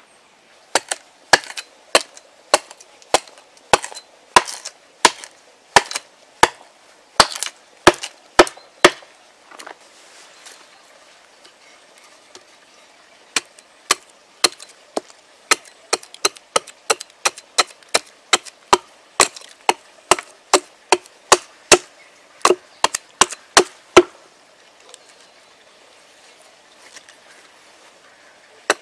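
Hatchet hewing a dried ash stave on a chopping block: a long run of sharp chopping strikes, about two a second, with a pause of a few seconds in the middle and another near the end.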